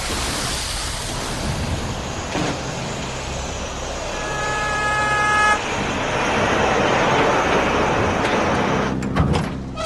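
Steady vehicle engine and road noise, with a car horn sounding once for about a second and a half about four seconds in. A few sharp knocks come near the end.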